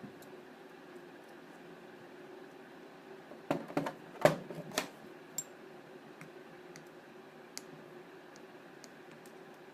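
A few sharp clicks and knocks, about three and a half to five seconds in, from an alternator rotor and metal hand tools being handled and set down on a hard work surface. A faint steady hum runs underneath.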